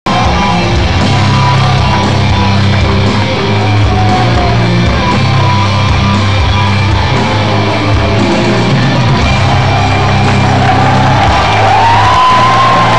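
Loud heavy metal music led by distorted guitar, played through a concert venue's sound system. A sustained lead line rises in pitch near the end.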